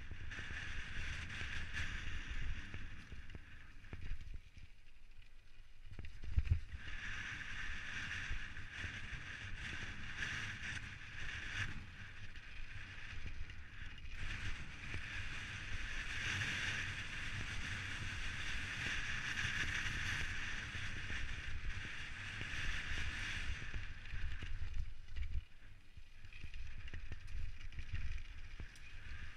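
Specialized Stumpjumper mountain bike rolling fast down a loose gravel trail: tyre noise on the gravel, wind on the microphone and rattling over bumps, with a heavy thump about six seconds in.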